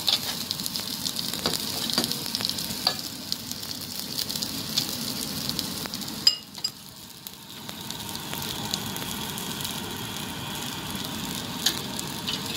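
Shell-on shrimp frying in butter in a pan: a steady sizzle with scattered crackles and pops. About six seconds in there is a sharp click, and the sizzle is briefly quieter before it picks back up.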